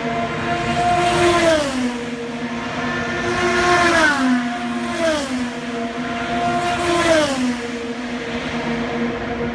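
IndyCars' twin-turbo V6 engines at full speed, passing one after another; each engine note drops sharply in pitch as its car goes by, about four times.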